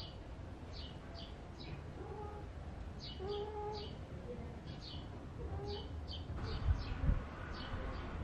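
Small birds chirping, short high falling chirps in quick runs of two or three. A couple of low thumps about seven seconds in.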